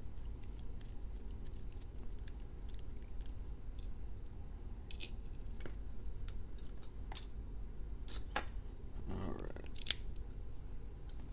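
Small metal lock parts and tools clicking and clinking as an ASSA Max+ lock cylinder is taken apart by hand: scattered light ticks, a brief scrape about nine seconds in, and one sharper click just after it.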